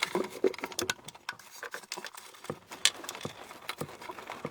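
Hands feeding a cable under a car's back seat: irregular rustling and small clicks of cable, carpet and plastic trim being handled, with one sharp click about three seconds in.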